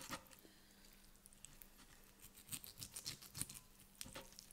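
Faint, scattered clicks and scrapes of a knife and fork cutting through a cooked rib steak on a wooden board, starting about two seconds in after a near-silent pause.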